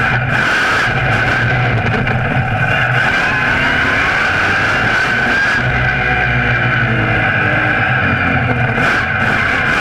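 Monster truck engine running loud, its revs rising and easing, with a steady high whine over it.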